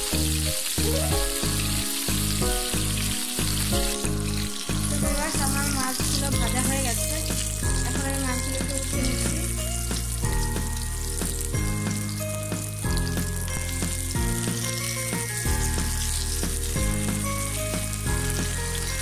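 Small sand goby fish frying in hot oil in a nonstick pan, a steady sizzle, while a silicone spatula turns the pieces. Background music plays underneath.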